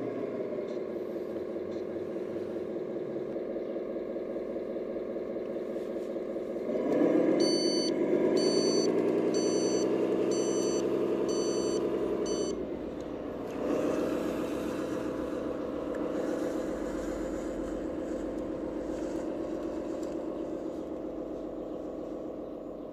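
An RC scale Iveco 8x8 truck's sound module playing a diesel engine sound. It revs up about seven seconds in while a beeper sounds about once a second, six times, then drops back, picks up again and fades toward the end.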